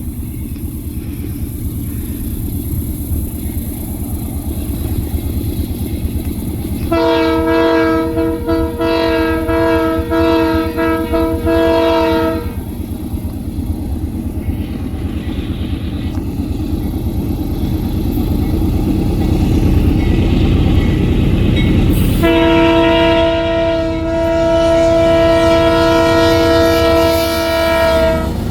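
KCSM diesel locomotive air horn sounding two long chords of several tones at once. The first lasts about five seconds with short breaks in it; the second is steadier and lasts about six seconds. Under the horn the locomotives' engines rumble steadily.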